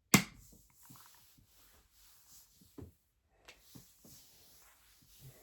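One sharp, loud smack just after the start, dying away quickly, followed by a few faint scattered taps and rustles.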